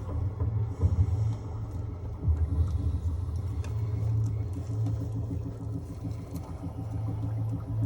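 A low, steady rumble, as of a vehicle running.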